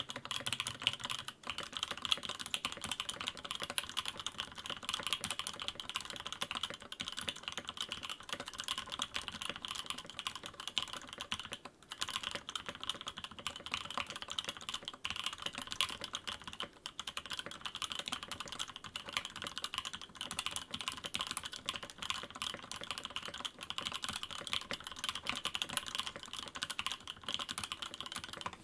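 Sam S80 top-mount mechanical keyboard being typed on steadily, a dense run of key clacks, with its bottom cover on and two layers of shelf liner packed inside the case.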